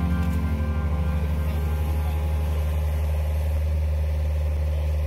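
Engine of the construction machinery on site idling steadily, an even low drone.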